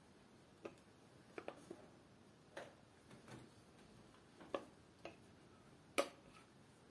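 Faint clicks and taps from a handmade chef's knife and its wooden sheath being handled and wiped with a microfiber cloth, about ten scattered knocks with the loudest about six seconds in.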